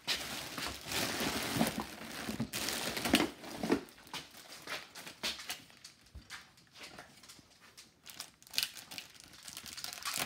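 Plastic candy wrappers and bags crinkling and rustling as they are handled, densest in the first few seconds, then sporadic rustles and clicks.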